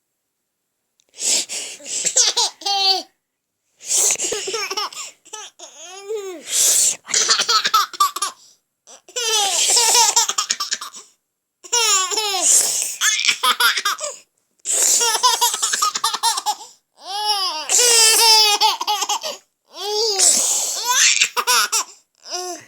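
Baby laughing heartily in about eight bouts a couple of seconds apart, each a breathy stretch running into quick, pitched 'ha-ha' giggles.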